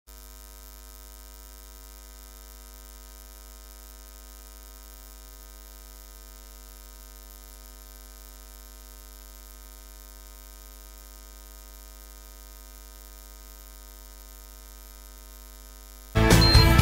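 Steady electrical mains hum, a low drone with a stack of steady tones above it and no other sound, until loud music starts abruptly near the end.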